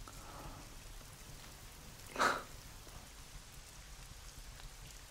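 Faint steady hiss with a few light ticks, and one short breathy sound, like a sigh, about two seconds in.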